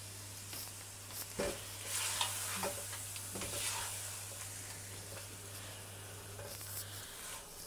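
Chicken pieces with chopped tomatoes and onion sizzling in a stainless steel pan while a spatula stirs them, scraping and knocking against the pan a few times a second or two in.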